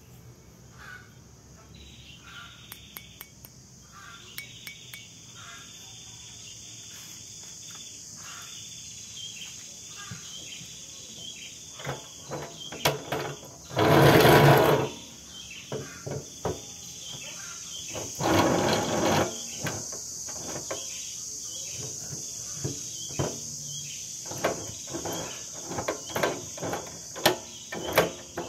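Clicks and knocks of a rusty steel pipe being handled and set into the vise of a cut-off saw while the vise screw is turned, with two louder bursts about a second long near the middle. A steady high insect drone runs underneath.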